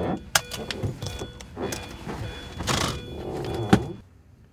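Upbeat pop music with sharp percussive hits, cutting off suddenly near the end.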